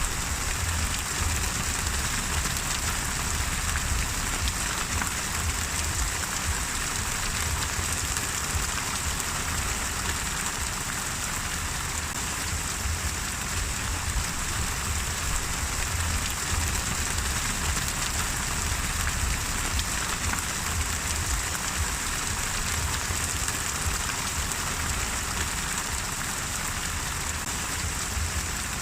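Steady rain falling and pattering on a surface, an even hiss with no let-up.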